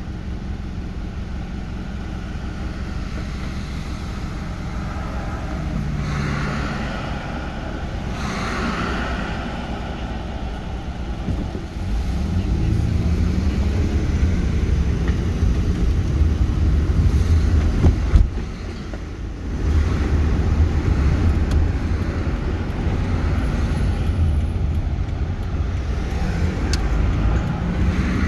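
Car interior: the engine running quietly while the car waits, then about twelve seconds in the low engine and road rumble grows louder as the car pulls away and drives on.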